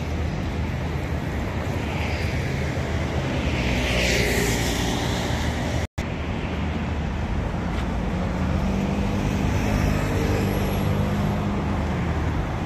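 Steady road traffic on a busy city street: car engines humming and tyres hissing, with one vehicle swishing past a few seconds in. The sound drops out for an instant near the middle.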